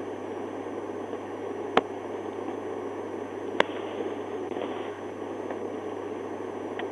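Steady hiss and low hum on the in-car dashcam audio of a parked police cruiser, with two sharp clicks about two seconds apart.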